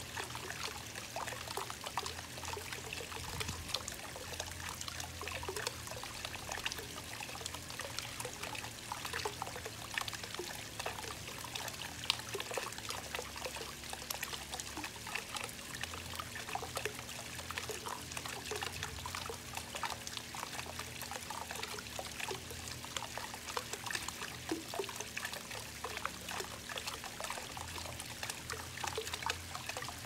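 Water from a weeping-wall fountain running down its stepped cement ledges. It makes a steady trickling and splashing, with many small drops falling from ledge to ledge.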